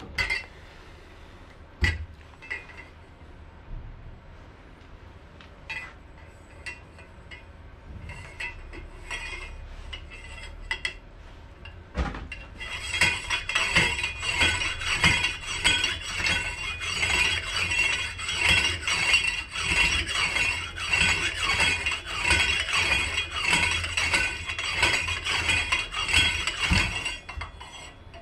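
A homemade pump drill, a steel pipe spindle with a drill chuck and a square steel crossbar on a rope, pumped up and down to bore into a wooden board, its metal parts clinking and rattling continuously and rhythmically from about halfway through. Before that, a few scattered clicks and knocks.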